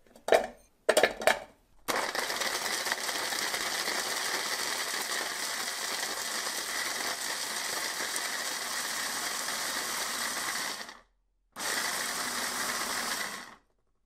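A few sharp knocks as chunks of hard Parmesan drop into the plastic chopper bowl. Then the 300-watt motor of a Philips Multichopper runs steadily, its blade grinding the Parmesan for about nine seconds, and stops. It then runs again in a short pulse of about two seconds.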